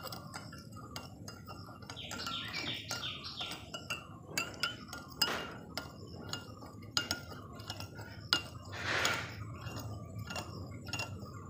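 A metal spoon clinking and scraping against a glass bowl as it stirs lye into coconut oil for hand-made soap, in irregular clinks with a longer scrape about nine seconds in.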